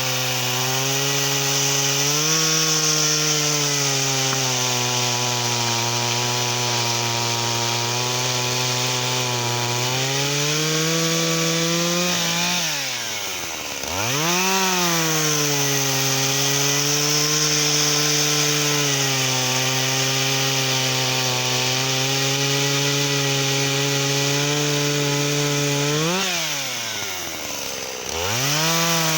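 Shindaiwa 488 two-stroke chainsaw cutting wattle, its engine held down under load through the cut. Twice the revs rise as a cut finishes, drop briefly to idle, then climb again as the next cut starts.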